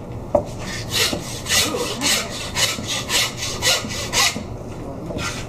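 Hand meat saw (a bow-frame butcher's bone saw) cutting through a pork shoulder in quick back-and-forth strokes, about three a second. The strokes start about a second in and pause shortly before the end.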